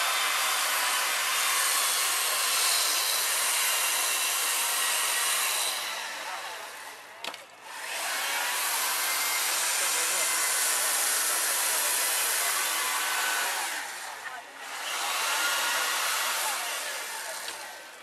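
An ice carver's handheld electric power tool running against the ice sculpture, a steady whirring hiss. It winds down and stops briefly twice, about seven and fourteen seconds in, then starts up again.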